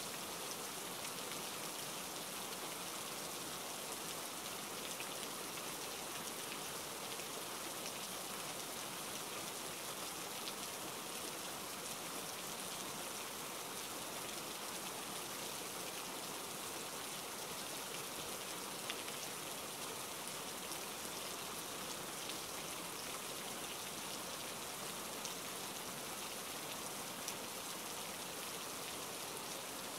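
Steady rain falling, an even wash of sound with a few faint, sharper drop ticks scattered through it.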